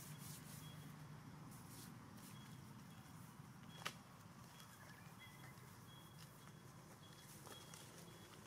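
Near silence: a faint steady low hum, broken by one sharp click about four seconds in.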